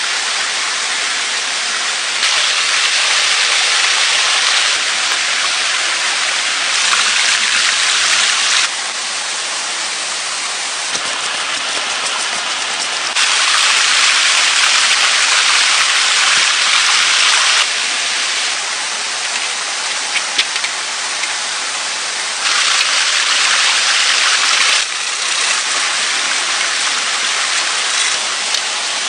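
Rushing water of a fast, rocky stream: a steady loud hiss that steps suddenly louder and quieter several times, with a few faint clicks around the middle.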